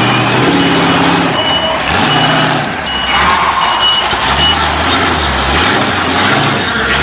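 BIGFOOT #6 monster truck's engine running at low speed, its revs swelling and dropping several times as it manoeuvres. A short, high electronic beep repeats about every 0.7 seconds, like a reversing alarm, and stops about halfway through.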